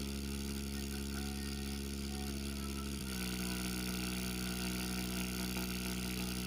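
Bare 4-inch subwoofer driver on a TDA7388 amplifier playing a steady, deep bass drone with many buzzing overtones. The drone steps to a slightly lower pitch about three seconds in.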